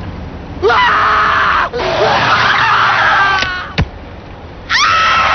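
Loud screaming in long bursts, with a sharp click in a short lull before the screaming starts again near the end.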